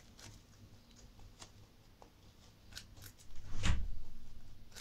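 Pet rabbit biting and chewing a raw carrot: a few short, crisp crunches spaced apart, then a louder crunch with a low thump about three and a half seconds in.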